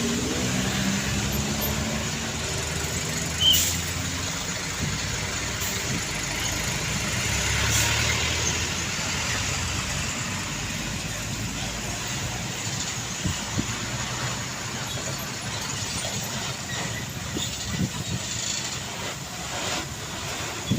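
Road traffic of trucks and other heavy vehicles passing, a low engine rumble that swells to its loudest about eight seconds in. There is a brief high-pitched squeak about three and a half seconds in.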